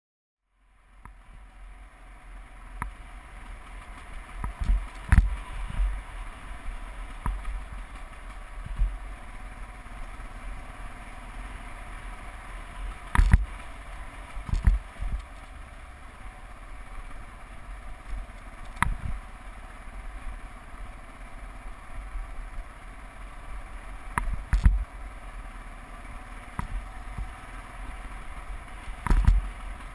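Motorcycle riding along a dirt road: steady engine and road noise, broken by sharp knocks and thuds every few seconds as the bike jolts over bumps. The sound starts about a second in.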